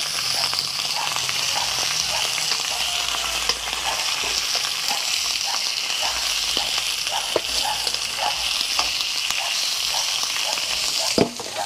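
Barracuda pieces frying in regular cooking oil in an aluminium pan: a steady sizzle with scattered small pops and ticks, and a sharper click shortly before the end.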